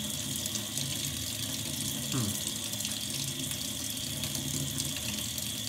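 Kitchen tap running steadily into a stainless steel sink, left running to warm up to lukewarm, with a finger held in the stream to feel its temperature.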